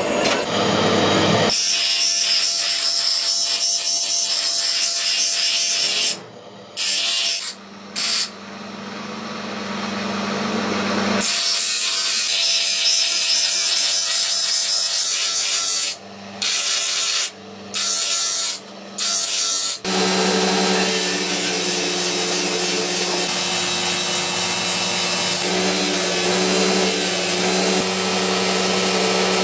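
Power tool grinding or sanding steel, with several brief stops, and changing about two-thirds of the way through to a steadier sound over a low hum.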